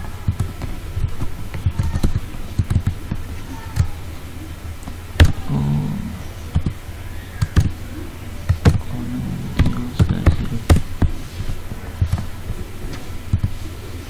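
Computer mouse clicks and keyboard keystrokes, a dozen or so sharp clicks at irregular intervals, over a steady low hum.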